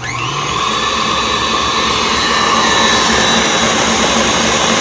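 Electric tilt-head stand mixer switched on, its motor winding up to speed within a moment and then running with a steady loud whir as the wire whisk beats an egg into creamed butter-and-sugar cake batter.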